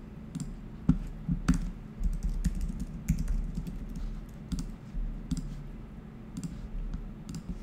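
Typing on a computer keyboard: irregular keystrokes, some louder than others.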